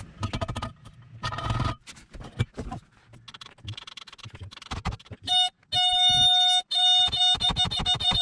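Scattered metallic clicks and scrapes as a long wrench is worked on a seized inboard boat engine. About five seconds in, electronic music takes over: a steady high synth tone with a fast pulsing beat.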